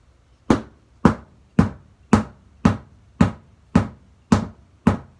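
A stick beating steadily on an empty, hollow cardboard box: nine strikes at about two a second, starting about half a second in. Each hit is a deep, hollow thud with a little bit of an echo.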